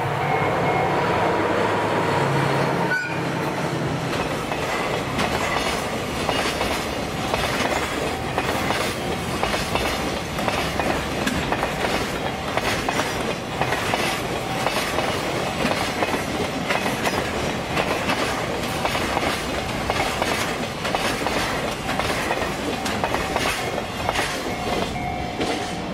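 Diesel freight locomotive passing close by, its engine heard for the first few seconds, then the rhythmic clickety-clack of the container wagons' wheels over the rail joints as the long train rolls through. The clatter drops away near the end as the last wagons pass.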